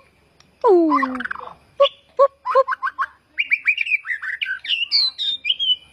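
A bird calling in a varied run: falling squawk-like glides, a quick series of short chirps, then whistled notes sliding up and down, ending on a held whistle.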